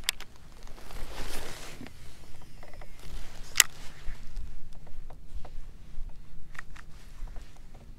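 Wind buffeting the microphone over choppy water, with a few sharp clicks from the fishing rod and reel being handled, the loudest about three and a half seconds in.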